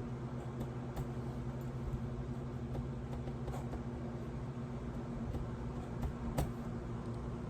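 Washing machine running with a steady hum, with a few light clicks over it, the sharpest about six seconds in.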